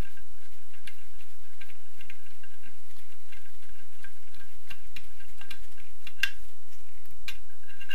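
Irregular light metallic ticks and clicks as a loosened 10mm cylinder head bolt on a Honda VFR800 V4 engine is turned out by hand.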